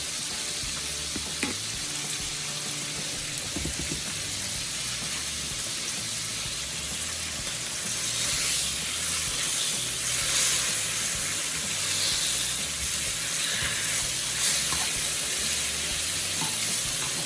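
Food frying in hot grease in a pan on high heat: a steady sizzling hiss with occasional pops, growing louder about halfway through.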